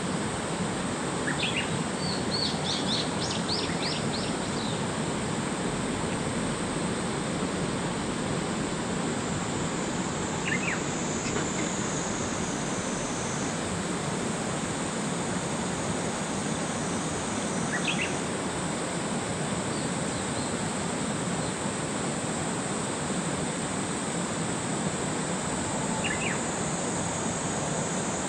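Steady rush of a river's flowing current. Birds chirp over it: a quick run of calls near the start, then brief single calls three more times.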